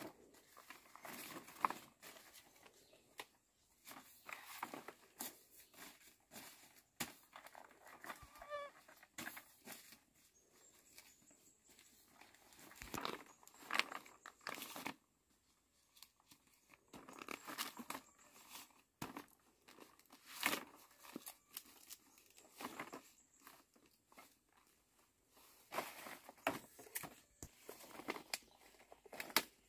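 Large dong leaves rustling and crackling in irregular bursts as they are stacked and rolled into a bundle by hand.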